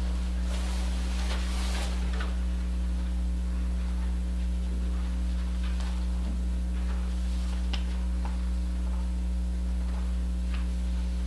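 Steady electrical mains hum in a hushed room. A faint rustle comes in the first two seconds, and a few faint ticks follow later.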